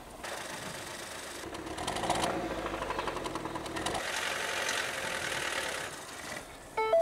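Ford Fiesta's petrol engine running with a rapid, regular mechanical clatter that gets louder from about two seconds in: an engine badly damaged inside, which the owner blames on defective spark plugs.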